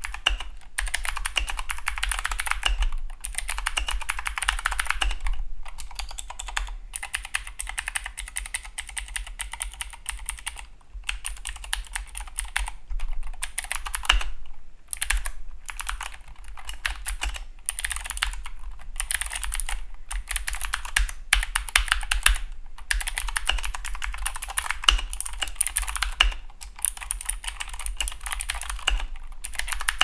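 Keychron K2 (V2) mechanical keyboard with clicky blue switches being typed on at a quick steady pace: a dense run of key clicks broken by a few brief pauses.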